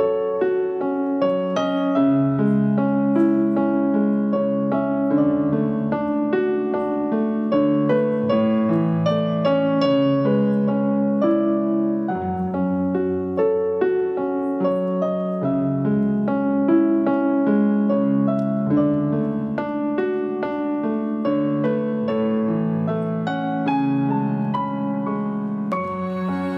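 Piano music: a flowing line of notes over held low chords.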